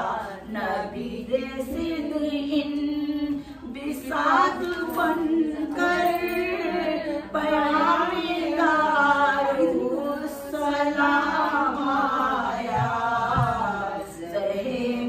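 Women singing devotional verses together in a chant-like melody, voices only with no instruments, for the Milad Sharif recitation.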